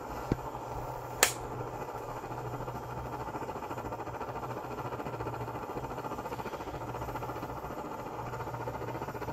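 Barthel petrol camping stove's burner running with a steady, fluttering hiss and low hum. A sharp click comes about a second in.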